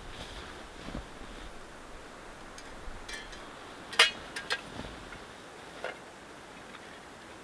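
Light clicks and clinks of small camping gear being handled, with one sharp clink about four seconds in and a few smaller ones soon after.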